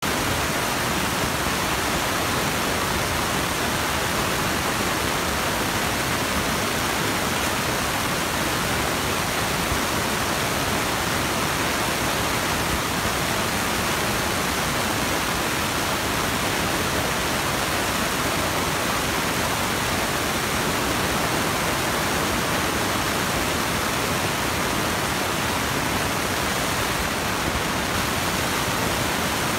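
Steady rushing noise that stays the same throughout, with no separate sounds standing out.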